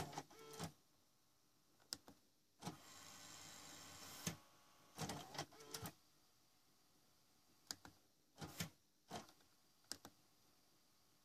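Faint, irregular clicks from a JVC KS-FX630R car cassette receiver as its front-panel buttons are pressed in tape mode, with a short stretch of faint hiss about three seconds in.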